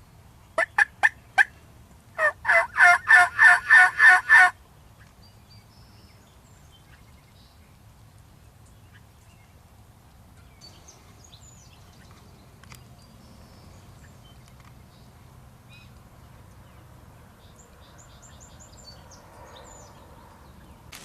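Four short, sharp turkey calls, then a wild turkey gobbler gobbling once: a loud, rapid rattling burst about two seconds long.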